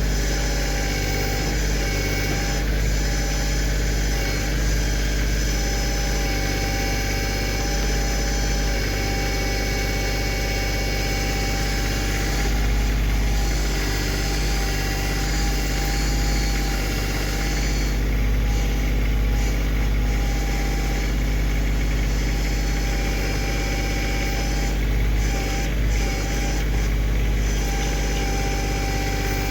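Kioti CK2610 compact tractor's three-cylinder diesel engine running steadily at an even speed.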